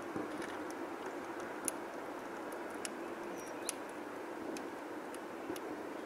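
Sharp little clicks at irregular moments from a male Eurasian bullfinch pecking at and cracking sunflower seeds on a wooden feeder board, over a steady background hiss.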